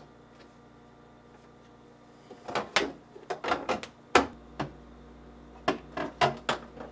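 A string of sharp clicks and knocks, starting about two and a half seconds in, as a metal refrigerator drawer slide is pressed and snapped onto the plastic tabs of its side support.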